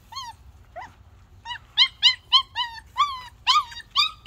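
Goldendoodle puppy whining: short, high-pitched cries that each fall in pitch. A couple come at the start, then after a brief lull they repeat about three times a second.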